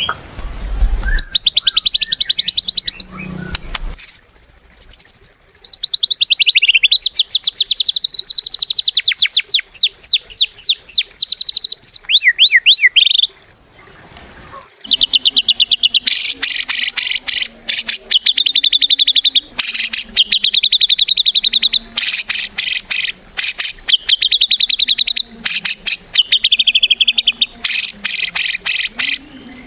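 White-rumped shama (murai batu) singing at full volume in rapid high trills and fast stuttering repeated phrases, with a brief pause about halfway through.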